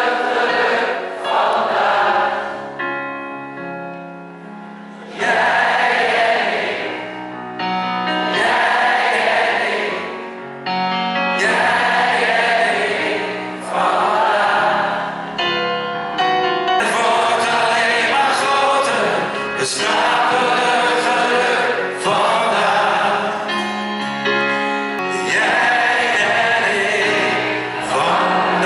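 Live pop concert heard from the audience: a male singer with his band, an acoustic guitar in the mix, and many voices singing along in phrases of a few seconds each.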